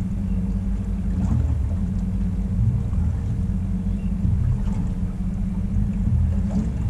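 Boat's outboard motor running steadily at low speed, a continuous low hum and rumble.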